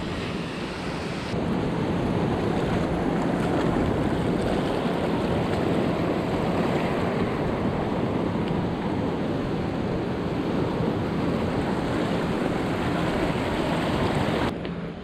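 Steady rush of sea water washing over a coral reef flat, mixed with wind buffeting the microphone. The noise steps up a little about a second in and cuts off abruptly just before the end.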